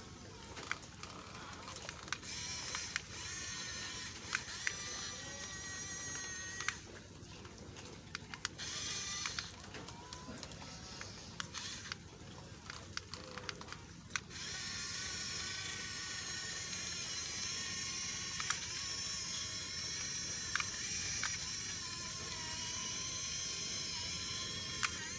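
Small electric motors and plastic gearboxes of a toy RC excavator whining. The whines come in short stop-start spurts, then run continuously from about halfway through, with scattered clicks.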